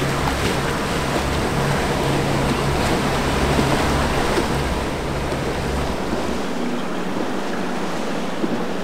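Rushing, churning water and waves of a fast, rough canal current, with the steady low drone of a boat's twin outboard motors running past. The low drone drops away about six seconds in, leaving the water noise.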